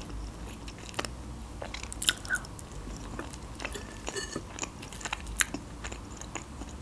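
Close-miked chewing of a mouthful of olivier salad: irregular wet mouth clicks and small crunches.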